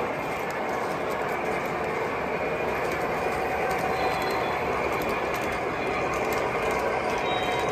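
O-gauge model freight train rolling on three-rail track: a steady rumble of metal wheels with a light clicking over the rail joints.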